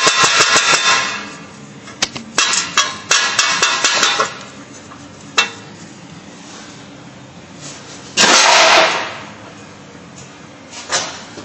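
Metal knocking from a Chevrolet Niva's faulty front suspension: a quick run of knocks at first, then scattered single knocks, and a short loud clatter about eight seconds in.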